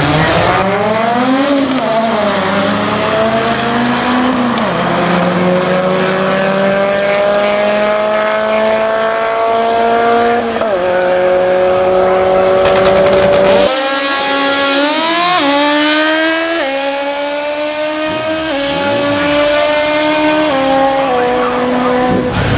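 Drag-racing engines at full throttle down the strip, the engine pitch climbing and then stepping back down at each gear change. About 14 s in the sound changes abruptly to another run, a drag motorcycle revving up through quick gear shifts.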